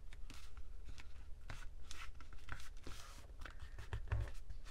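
Hands smoothing and pressing a freshly glued sheet of paper flat onto a journal page, with soft paper rustles and swishes and a few light taps.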